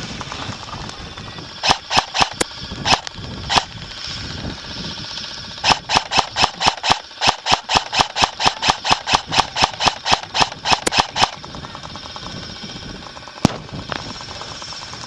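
Airsoft guns firing in a skirmish: a few scattered shots, then a long string of rapid shots at about five a second, and one sharp single shot near the end.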